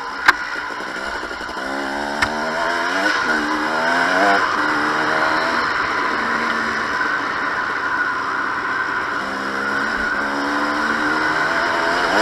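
2007 KTM 250 XC-W's single-cylinder two-stroke engine revving up and down under way, its pitch climbing about two to four seconds in and again near the end, over a steady hiss. A sharp knock comes just after the start and another about two seconds in.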